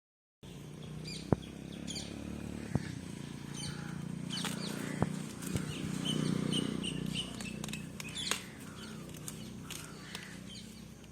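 Small birds chirping on and off over outdoor background noise, with a few sharp clicks or snaps scattered through it.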